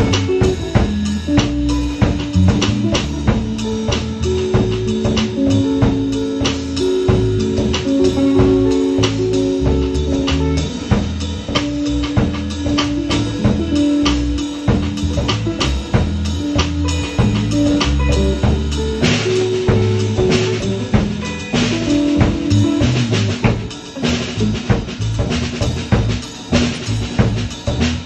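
A band playing, with a drum kit keeping a steady beat under long held notes from other instruments.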